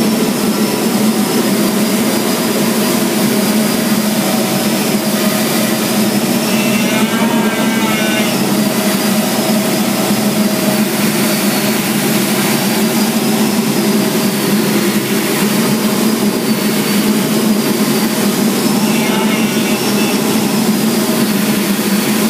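Jet engine noise heard inside the cockpit of a T-45 Goshawk trainer, whose single turbofan runs steadily on approach to a carrier landing. It is a constant low drone with a high whine that wavers slightly in pitch.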